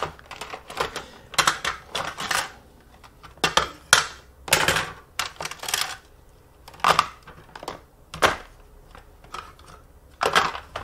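Kitchen graters being handled and set down: an irregular string of clicks, knocks and short rattles.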